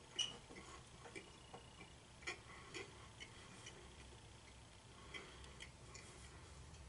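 A few faint, scattered clicks and ticks over a quiet room hum, the sharpest about a quarter second in and a few more spread irregularly after.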